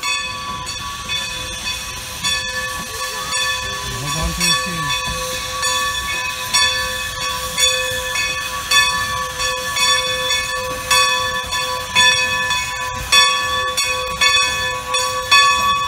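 Steam locomotive bell ringing repeatedly, its steady ringing tones pulsing with each swing, as Great Western Railway No. 90, a 2-10-0 steam locomotive, rolls slowly in, with steam hissing from the engine.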